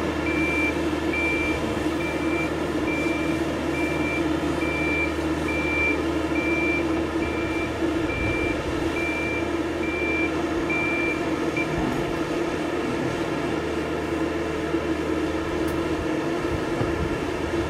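Boat travel lift moving a yacht: its engine runs steadily while its high-pitched warning beeper sounds about once a second, the beeping stopping about two-thirds of the way through.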